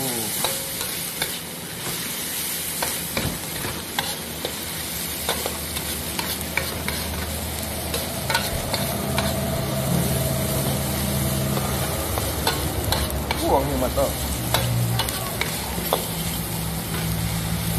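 Stir-frying in a metal wok: a long metal ladle scrapes and clinks against the wok while sliced umbut (palm shoots) sizzles in the oil. A low steady hum comes in about six seconds in.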